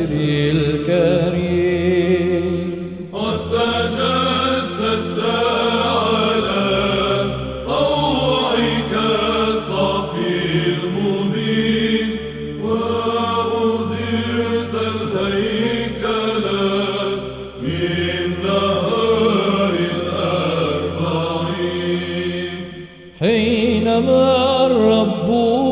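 Chanted hymn in Byzantine style: a single winding vocal line sung over a steady low drone, in long phrases with a short break about 23 seconds in.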